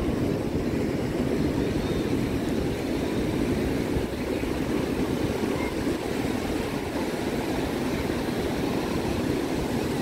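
Steady rush of surf on the beach with wind buffeting the microphone, an even, unbroken roar.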